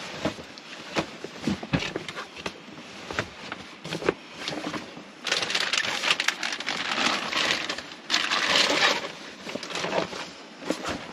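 Bedding and bags being handled: a plastic bag crinkling and rustling, with fabric shuffling and scattered light knocks. The rustling is densest and loudest from about halfway in until shortly before the end.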